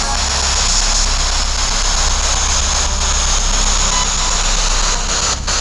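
Handheld spirit box sweeping the FM radio band: a steady hiss of radio static from its small speaker, with a brief drop-out just before the end.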